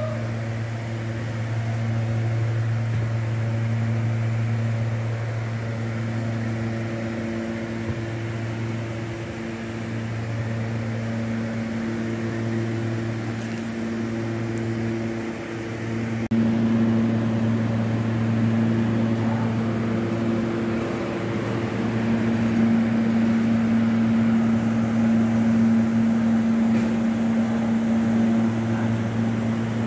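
Steady machinery hum aboard a ship: a low drone with a higher steady tone over it, which grows louder about halfway through.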